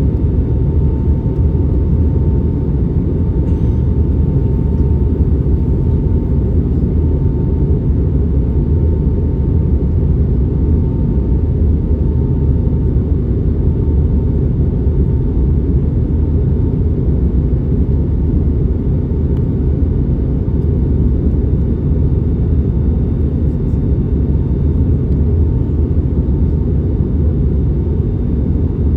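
Cabin noise of an Airbus A321neo in flight: a steady low rumble of engines and airflow, with a faint steady tone above it.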